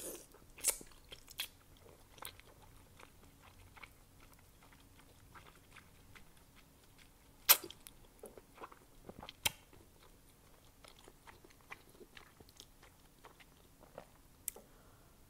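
Close-miked chewing of a mouthful of chewy, slippery wide Korean glass noodles: a run of wet mouth smacks and clicks, the loudest about halfway through and again two seconds later.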